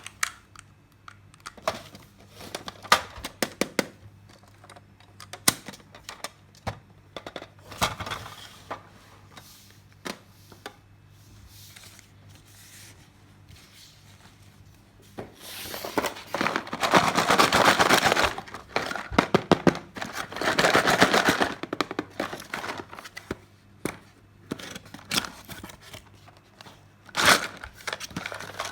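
Small plastic toy parts being handled, with scattered clicks and taps, and two longer stretches of plastic packaging crinkling a little past halfway through.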